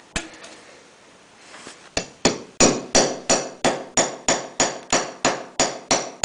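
Hammer tapping on a steel hydraulic-cylinder part to drive a new seal into place. A single knock comes first, then from about two seconds in a steady run of quick metallic strikes, about three a second, each ringing briefly.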